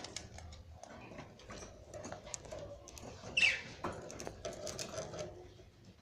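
Budgerigars nibbling and pulling at fresh seeding grass: a scatter of small beak clicks and grass rustles, with one louder sharp sound about three and a half seconds in.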